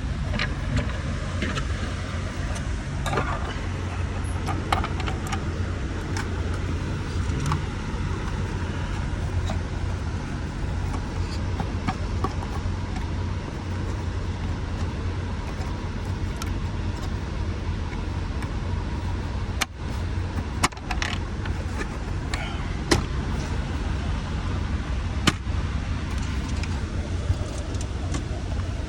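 Steady low engine rumble in the background, with scattered small clicks and taps of steering-column parts and screws being handled and fitted.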